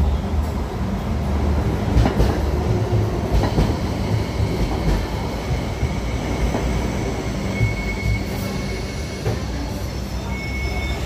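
Hong Kong Light Rail vehicle pulling into the platform, its wheels rumbling with a few sharp clacks over the track. A thin high whine comes in twice in the last few seconds as it slows.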